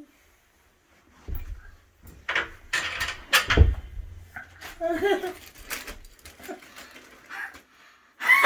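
Irregular knocks and clunks from handling a wooden toddler bed's parts and a cordless impact driver, with brief voice sounds around the middle.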